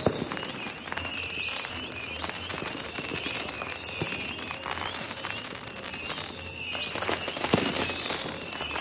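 Fireworks going off continuously: dense crackling with high whistling tones, and sharp bangs at the very start and again about seven and a half seconds in.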